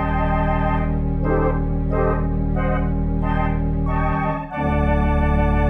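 Background music score: a loud held low chord with short notes repeating above it, the chord changing about four seconds in.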